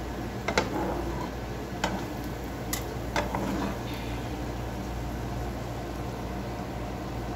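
Spatula clicking and tapping against a nonstick frying pan, four sharp ticks in the first four seconds as a pancake is nudged. Under them, a steady hum and the faint sizzle of the pancake frying in butter.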